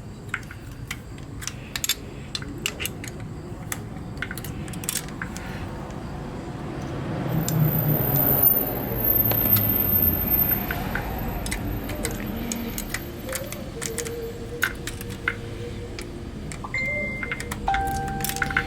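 Small metal parts and hand tools clicking and clinking in short, irregular taps while fasteners are worked loose on a motorcycle's carburetors. A louder low rumble swells for a few seconds in the middle.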